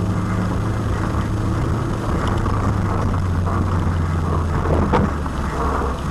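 Four-wheel-drive rally car's engine running steadily under load, heard from inside the cabin over tyre and road noise; its pitch drops a little about four seconds in. A single sharp knock comes about five seconds in.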